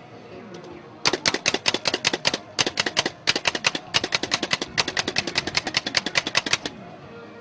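A MAXONE hand-operated food chopper's plunger is struck over and over, its blades chopping the food inside with a fast clicking clatter. There are about eight strokes a second, in several short runs, starting about a second in and stopping near the end.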